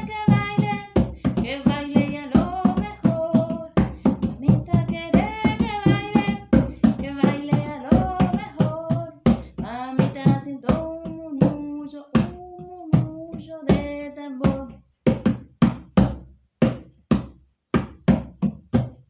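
A woman sings a melody while beating a steady rhythm with her hands on a rope-tensioned drum. About fifteen seconds in the singing stops and the drum carries on alone.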